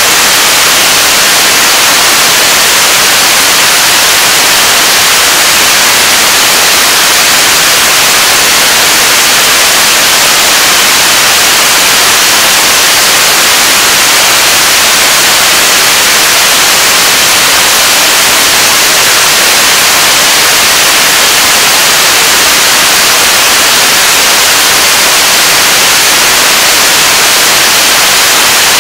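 Korean launch vehicle 75-tonne-class kerosene and liquid-oxygen rocket engine firing steadily on a test stand: a very loud, unchanging rushing noise.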